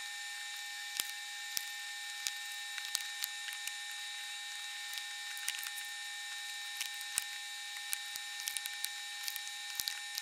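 Scattered light clicks and taps of prismatic LiFePO4 battery cells being handled and set into place, over a steady hiss with a faint high whine.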